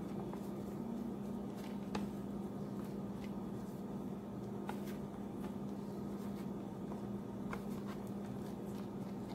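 Coarse panko breadcrumbs rustling and crunching softly as gloved hands press them onto a chicken roll in a metal tray, with a few faint clicks, over a steady low hum.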